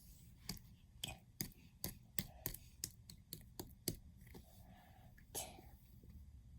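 Faint, irregular clicks and small pops, about a dozen over four seconds, from slime being squished and handled, with a soft rustle near the end.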